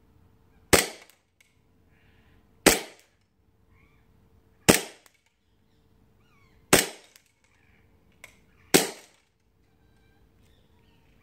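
Tokyo Marui M9A1 gas blowback airsoft pistol firing five single shots, evenly spaced about two seconds apart, each a sharp crack that dies away quickly.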